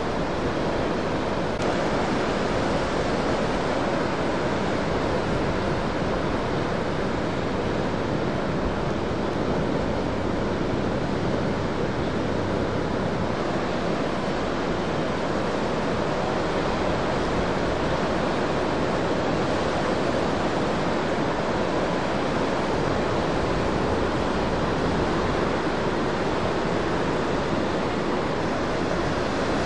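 Heavy ocean surf breaking, heard as a steady, continuous wash of white-water noise without distinct single crashes.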